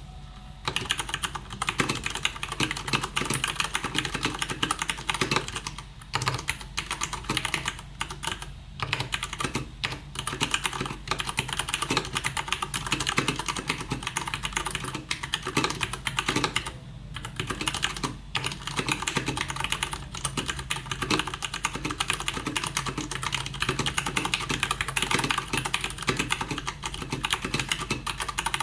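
Fast continuous typing on a Leopold FC750R mechanical keyboard with Cherry MX Brown switches: a dense patter of key clicks and bottoming-out clacks, with a few short pauses.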